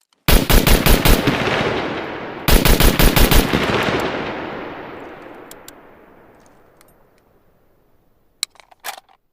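SVD Dragunov 7.62×54mmR sniper rifle firing two rapid strings of about six shots each, about two seconds apart, with a long echoing tail. A few sharp clicks follow near the end.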